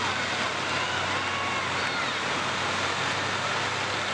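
Combine harvesters' diesel engines running together in a steady mix of engine noise with a low hum, faint rising and falling whines over it.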